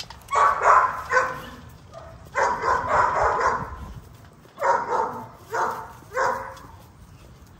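XL bully puppies barking in five bursts: two drawn-out ones of about a second each, then three short ones, while they jostle at a shared food pan.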